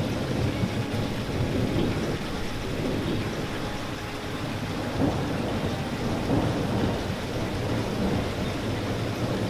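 Steady rain falling, an even, unbroken wash of sound weighted toward the low end, with no single drops or claps standing out.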